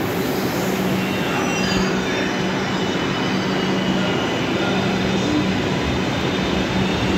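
Kolkata Metro train running through an underground station: a steady rumble of wheels on rail with a steady low hum, and faint high-pitched squeal from the wheels.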